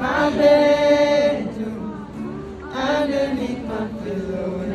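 Crowd of fans chanting in unison: a short sung phrase that swoops up into a held note, repeated about every two and a half seconds.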